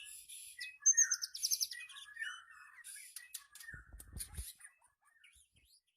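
White-rumped shama calling: quick high chirps and a short rapid trill of repeated notes, with a brief cluster of clicks and low thumps about four seconds in.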